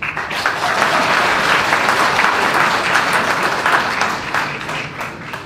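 Audience applauding, many people clapping together to greet the next speaker. The clapping starts abruptly and fades away near the end.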